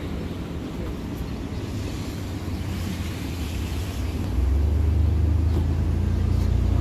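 Low rumble of a car engine running close by, growing louder about four and a half seconds in.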